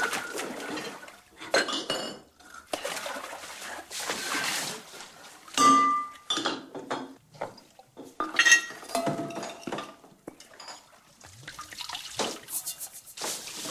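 Glass toiletry and perfume bottles clinking against each other as they are picked up and set down, several of the knocks ringing briefly. Liquid sloshes and pours from the bottles in between.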